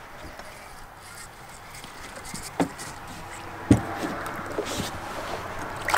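Water sloshing and small splashes beside a boat as a hooked bass is brought to the surface, with a few short knocks on the boat, the loudest a little over halfway through.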